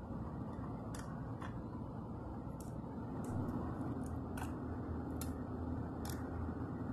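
A handful of sharp, light clicks and taps, spaced a second or so apart, from the plastic and die-cast parts of a First Gear toy garbage truck and its toy trash carts being handled, over a steady low background hum.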